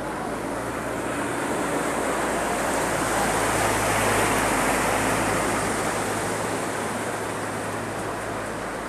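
An SUV driving through deep floodwater, its wheels pushing a rushing, splashing wave of water, loudest as it passes close about four seconds in and then fading, with its engine running as a low hum underneath.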